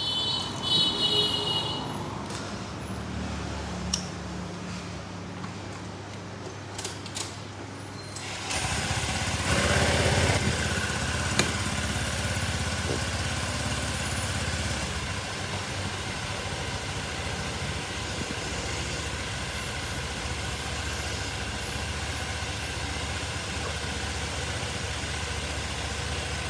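Motor scooter engine starting about a third of the way in and then idling steadily, with a crankshaft position sensor tester plugged into its sensor wiring. A brief high tone sounds near the start.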